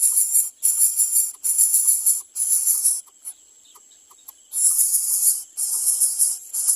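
Greater coucal nestlings giving harsh, hissing begging calls in rapid repeated bursts of under a second each. The calls break off about three seconds in and start again about a second and a half later.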